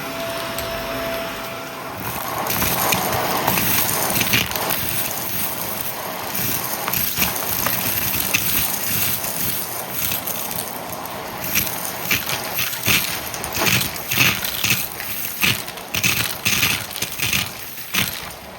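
Shark vacuum cleaner running and sucking up a small scattered mess, debris crackling and rattling through it. A steady whine fades about two seconds in, and in the last third the noise comes in irregular surges, about one or two a second.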